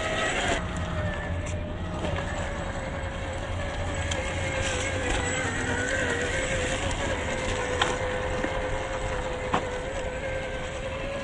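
CrossRC XT4 RC crawler's stock 540 brushed motor and geared drivetrain whining at a nearly steady pitch as it drives over dirt, with a low rumble of the tyres and a few sharp clicks.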